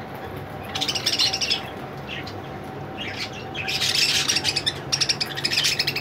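A flock of caged budgerigars chirping and chattering in rapid bursts, once about a second in and again from about three seconds in.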